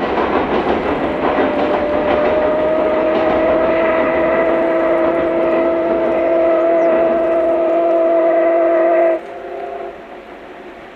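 C57 steam locomotive's steam whistle blown in one long blast of about eight seconds, several tones sounding together, which cuts off suddenly, over the noise of the passing train.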